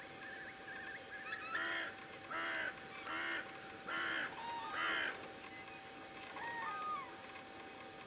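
Wild geese in a feeding flock calling: five loud honking calls about a second apart, then a few softer calls.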